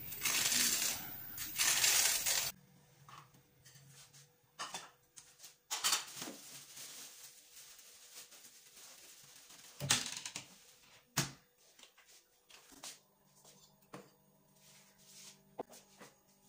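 A toasted sandwich sizzling and crunching on a hot flat iron griddle (tawa) as a steel spatula presses it down, loud for the first two and a half seconds. It stops abruptly, and quieter kitchen tidying follows: the rustle of a plastic bread bag and scattered clicks and knocks on the counter.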